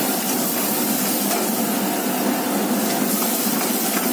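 Steady hiss of a high gas burner flame under a wok, with cumin, green chillies and curry leaves sizzling in hot oil: the tempering for dal fry.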